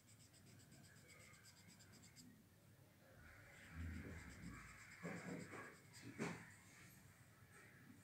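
Charcoal pencil scratching on drawing paper in quick, short shading strokes, faint. Partway through comes a louder stretch of scraping with two sharp knocks.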